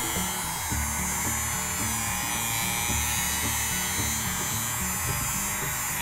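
Toy hair dryer running, a steady high whir that holds evenly throughout.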